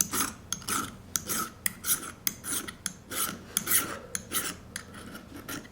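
Leatherman multitool file stroking across the edge of a steel ice auger blade, a rapid series of short rasping strokes, roughly two a second, taking off the burr left by drilling into mud and gravel.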